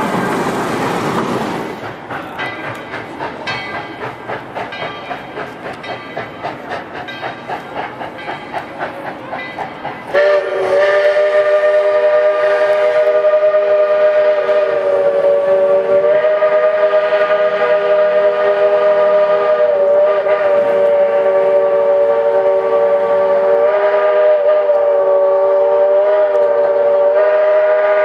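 Tweetsie Railroad No. 12 steam locomotive running past with a rhythmic beat about twice a second. About ten seconds in, its whistle opens with a loud, steady multi-note chord that is held for the rest of the run.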